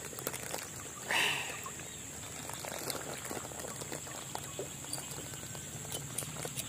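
Water splashing and dripping around a freshly caught snakehead being handled in the shallows: one short splash about a second in, then small drips and trickles.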